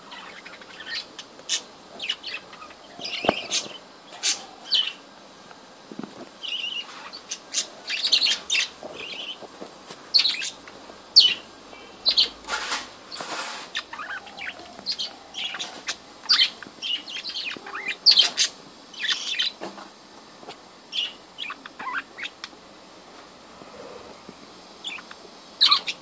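Budgerigars chirping: many short, sharp calls in quick, irregular succession.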